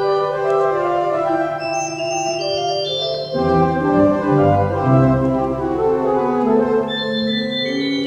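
Organ playing sustained chords over a steady held low note. About three seconds in, deeper bass notes come in and the harmony moves down.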